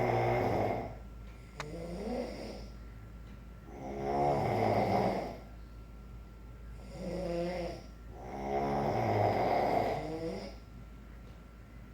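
Tiger growling in a run of low, rasping breaths, about five in a row, each a second or two long with short pauses between.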